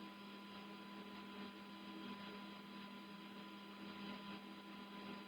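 Faint, steady electrical hum over a low hiss: room tone, with no distinct handling sounds.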